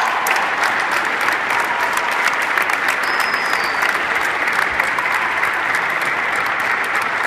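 Steady applause from spectators and teammates clapping in a basketball gym.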